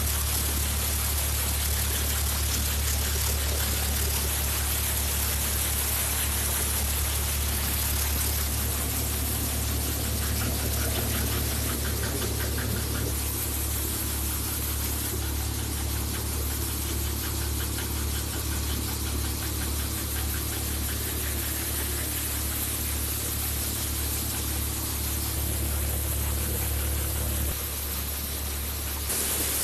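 Tractor-driven wheat thresher running under load: the Swaraj 855 FE's three-cylinder diesel engine drones steadily as it turns the Matharu thresher's drum and fan, over a constant hiss of straw and chaff being blown through the machine. The low hum shifts slightly near the end.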